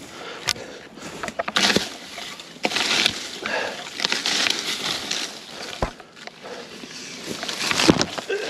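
Footsteps crunching and brushing through dry, matted grass on a steep slope, an uneven run of rustles and crackles.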